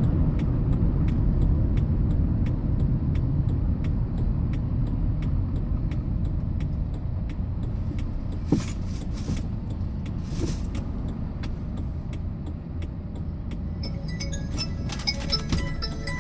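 Hyundai Porter box truck heard from inside the cab while driving: a steady low engine and road rumble that slowly eases. There are a couple of knocks midway, and near the end a phone starts ringing.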